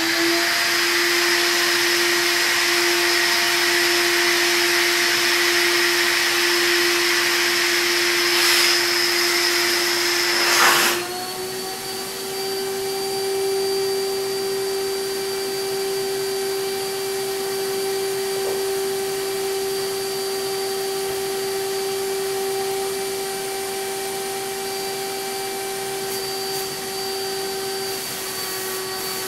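Capspray HVLP turbine sprayer running with a steady high whine and a loud rush of air. About eleven seconds in, after a couple of sharp knocks, the air rush cuts out and the whine steps up a little in pitch, then holds steady.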